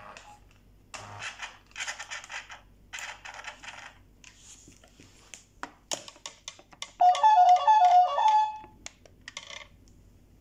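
Remote-controlled Il Tempo Gigante model car: its small electric drive whirs in several short bursts, with a few clicks. About seven seconds in comes the loudest sound, a short electronic tune of stepped beeping notes lasting under two seconds.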